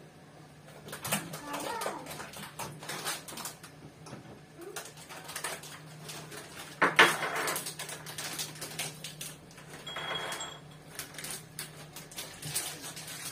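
Kitchenware clattering: cups, dishes and spoons being handled, with scattered clicks and knocks and one sharp knock about seven seconds in.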